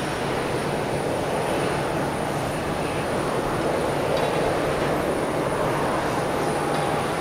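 Boeing 737-800's CFM56-7B turbofan engines running at low taxi thrust: a steady rushing jet noise.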